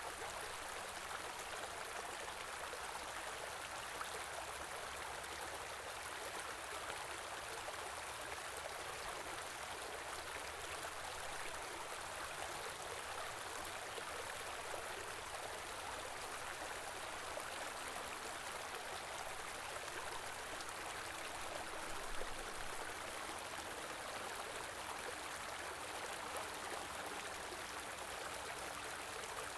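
Small stream running steadily over rocks, an even rushing and burbling of water.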